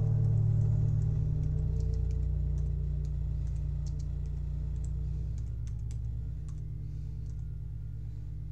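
Computer keyboard typing in short, scattered runs of clicks over the low, sustained tones of background music that slowly fade.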